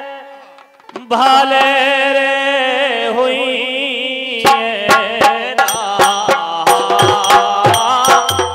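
Bundelkhandi rai fag folk music: a man singing over a sustained harmonium-like reed drone, after a brief pause about a second in. About four and a half seconds in, sharp drum strokes join in a steady rhythm.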